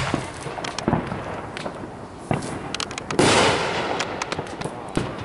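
Consumer aerial fireworks going off: a loud bang at the start, another sharp bang about a second in, and a big burst a little after three seconds that trails off into rapid crackling pops.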